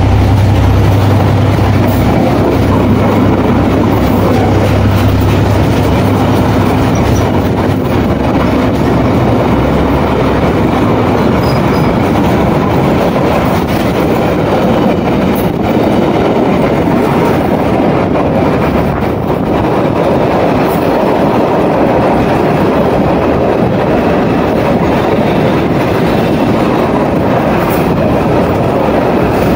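Freight wagons rolling past at close range: the steady noise of steel wheels running on the rails. A low hum underneath fades out within the first few seconds.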